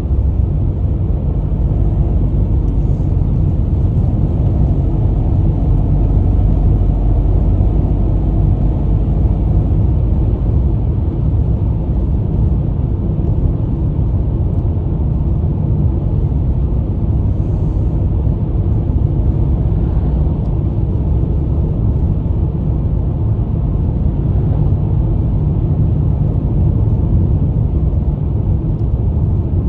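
Steady low rumble of a moving car's engine and tyres on the road surface, heard from inside the cabin.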